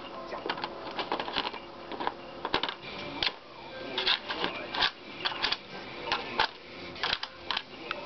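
Small plastic ball clicking and clattering irregularly inside a circular plastic ball-track cat toy as a puppy noses and licks at it, with quick runs of rattles and separate sharp clicks.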